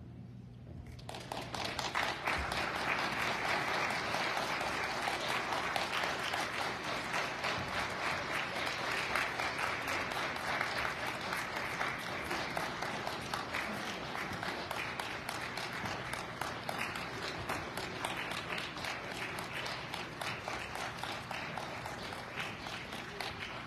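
Congregation applauding. It starts about a second in, is strongest over the next several seconds, then slowly dies away.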